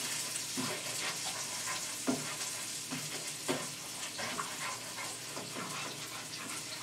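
Butter melting and sizzling in hot olive oil in a frying pan with chicken breasts cooking, stirred with a utensil, with a steady hiss and a few sharp clicks as the utensil strikes the pan.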